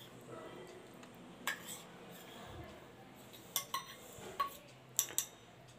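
Metal spoon clinking against a small steel cup and stirring chopped fruit in a bowl: a few sharp clinks, most of them close together in the second half.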